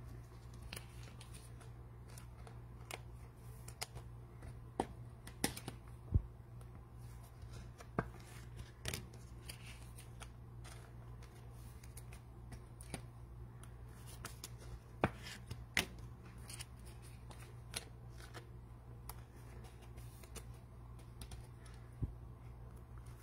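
Faint, irregular clicks and taps of trading cards being handled, over a steady low hum, with a sharper knock about six seconds in.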